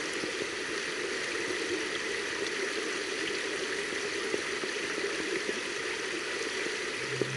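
Steady rush of running water, like a stream. Music comes in just before the end.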